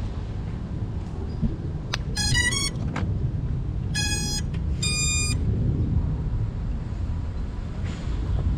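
An FPV quadcopter's motors beep the ESC startup tones: a quick three-step rising melody about two seconds in, then a lower beep and a higher beep about a second apart. This is the sign of the speed controllers starting up after the battery is connected. A steady low rumble runs underneath.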